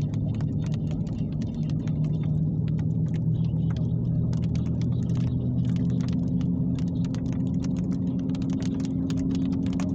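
Steady low hum, its pitch creeping slightly upward, with many quick irregular ticks over it, rain drops striking during a heavy thunderstorm.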